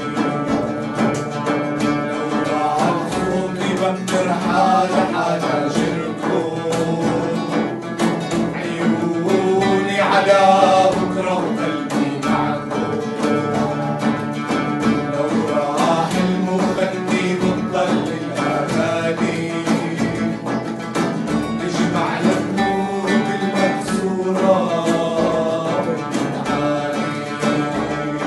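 Live acoustic Arabic song: men's voices singing to a nylon-string guitar and an oud, with a hand-played frame drum tapping the rhythm.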